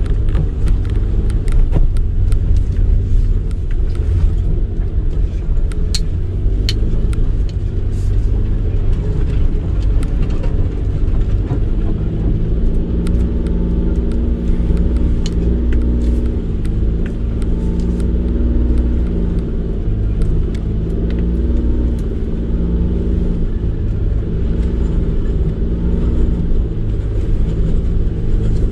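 Honda N-VAN's three-cylinder kei engine and road noise rumbling as the van drives slowly along a bumpy grass-and-dirt track. The engine hum is steady, with scattered sharp knocks and clicks.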